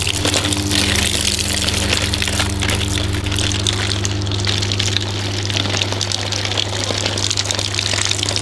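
Greywater gushing steadily from a drain outlet into a trench, over a steady low motor hum.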